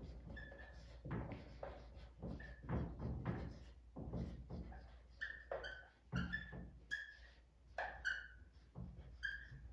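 Dry-erase marker writing on a whiteboard: a faint run of short scratchy strokes, many of them with a brief high-pitched squeak.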